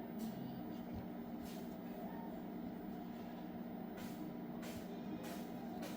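Steady low electrical hum with a few faint clicks, the background of workbench equipment running during a phone repair.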